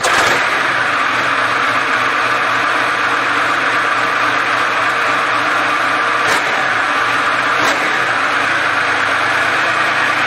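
Soviet V-2-family 38.8-litre V12 tank diesel running steadily at an even, unchanging speed.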